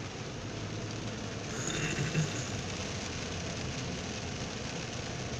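Steady in-cabin noise of a car driving on a rain-soaked, waterlogged road: low engine hum and the hiss of tyres on wet asphalt, with a brief louder swell of hiss about two seconds in.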